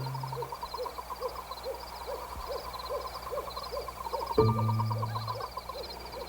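An owl hooting in a night-time woodland soundscape, with one low held hoot about four seconds in, over a steady rhythmic chirping of night creatures.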